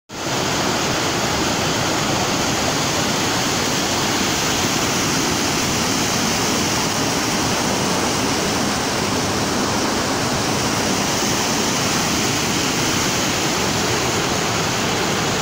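Rushing water of a rocky mountain river cascading over boulders and smooth rock slabs: a steady, loud rush.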